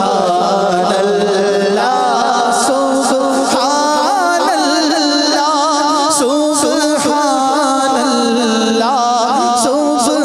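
Men singing a Punjabi naat, an Islamic devotional poem. The lead voice carries a wavering, ornamented melody over a steady low drone that holds throughout.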